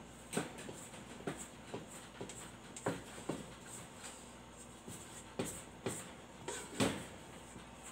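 A spatula scraping leftover dough from the inside of a stainless steel mixing bowl: about a dozen irregular scrapes and knocks against the metal, the loudest about a second before the end.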